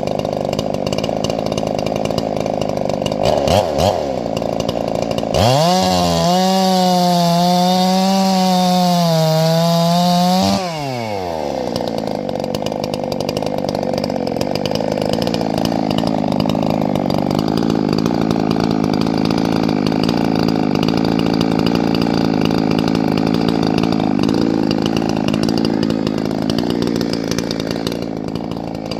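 Gas chainsaws running while cutting firewood. About five seconds in, one saw runs at full throttle for about five seconds, its pitch wavering, then drops away, and engine noise carries on steadily.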